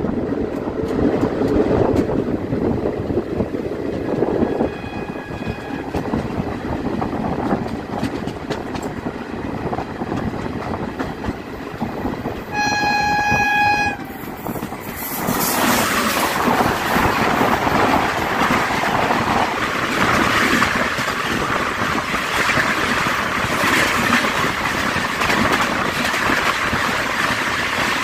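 Running noise heard from aboard a moving passenger train, with the rattle of wheels over the rails. A locomotive horn sounds faintly about five seconds in, then a loud horn blast of over a second around the middle. From about fifteen seconds the rushing noise grows louder and fuller.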